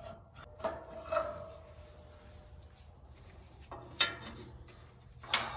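A few light clicks and taps of hand tools handled against a steel pallet rack upright: a level, then a metal speed square being set against it. One small tap about a second in leaves a faint ringing, and the sharpest clicks come about four seconds in and near the end.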